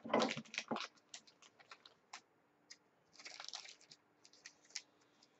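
Faint handling of trading cards: a quick run of small clicks and taps, a short rustle of cards sliding about three seconds in, then a few more clicks.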